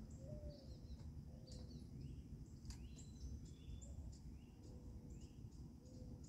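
Small birds chirping and calling outdoors, many short high notes scattered through, over a steady low rumble of background noise.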